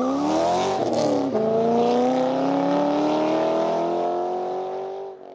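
Car engine accelerating hard, its pitch climbing, dropping once about a second in as it shifts up a gear, then climbing again. The sound cuts off abruptly at the end.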